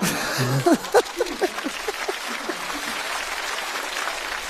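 Studio audience applauding and laughing in response to a stand-up punchline. Short bursts of laughter and voices come through in the first two seconds, and the applause slowly dies down near the end.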